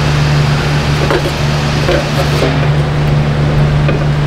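Steady low mechanical hum of running shop equipment, with a few light clicks of hand tools as a wheel bearing's bolts are tightened.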